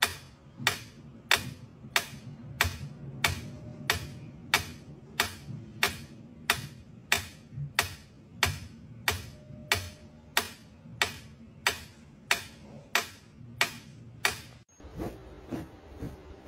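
Mechanical pendulum metronome ticking steadily, about three ticks every two seconds, stopping suddenly near the end.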